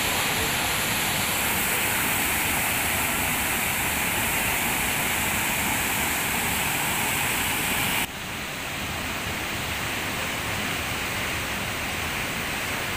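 Waterfall rushing steadily as two cascades pour into a rock pool. About two-thirds of the way in the rush suddenly drops quieter and duller, then carries on steadily.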